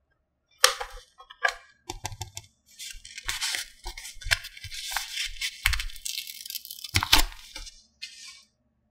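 Plastic packaging crinkling and tearing, with sharp clicks of small plastic pieces being handled. It starts abruptly under a second in and goes in uneven bursts, stopping near the end.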